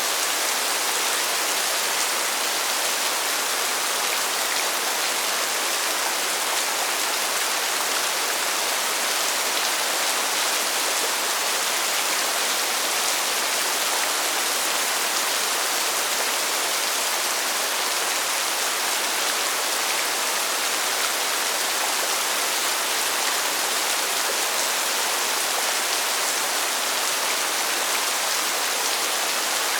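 Steady rainfall: an even, unbroken hiss, mostly high in pitch, with no single drops standing out.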